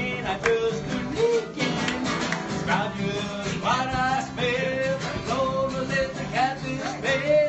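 Live country music: a strummed acoustic guitar, with a voice over it.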